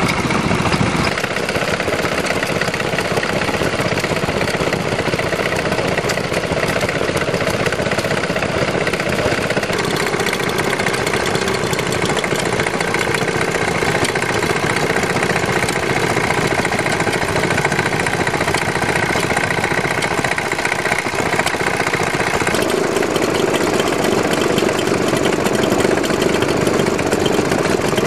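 Small vintage stationary engines running steadily, the sound changing abruptly about a second in, around ten seconds in and again near the end as it moves from one engine to the next: a Lister driving a generator, a small Lister and a Stuart.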